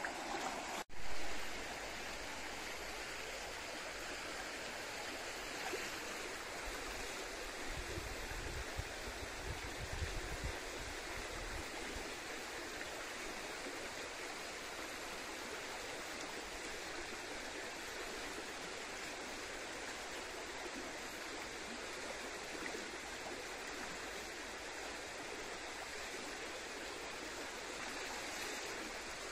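Shallow stream running over a stony riffle, a steady rush of water. A short loud bump comes about a second in, and low rumbles around eight to eleven seconds.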